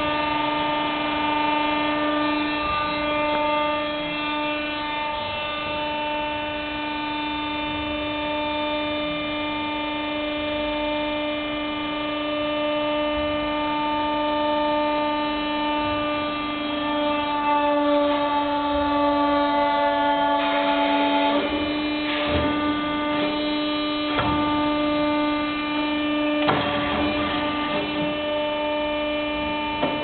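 Mini metal baler's hydraulic power unit running with a steady hum while it presses lead scrap. Its pitch dips slightly for a few seconds about two-thirds of the way in. A handful of sharp knocks follow near the end.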